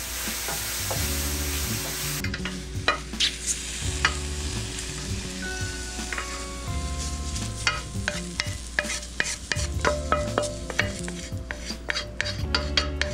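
Sliced mushrooms sizzling in a hot metal sauté pan as a wooden spoon stirs them. About two seconds in the sizzle cuts off, and the wooden spoon scrapes and taps against the metal pan many times, pushing the browned mushrooms out into a ceramic bowl.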